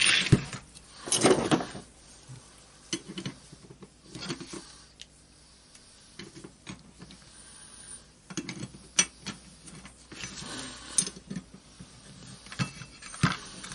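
Irregular metallic clinks, clicks and short scrapes of hand tools and small metal parts as a screw is turned by hand to push a part out of an orbital sander's armature assembly.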